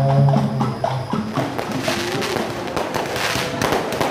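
Parade music holds a single low note for about the first second and a half, then cuts to fireworks going off overhead: a dense crackling of many small sharp pops from bursting, crackling star shells.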